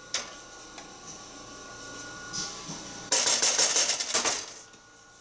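Spatula scraping the last blended strawberry out of a glass measuring cup into a pot: a rapid scratchy rasp lasting about a second, starting around three seconds in, after a single light knock at the start.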